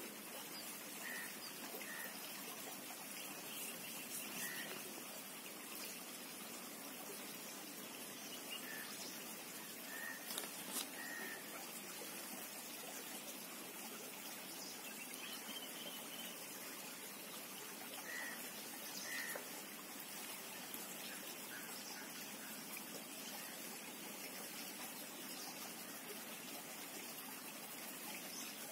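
Steady faint outdoor background hiss with a few short, faint bird chirps scattered through it.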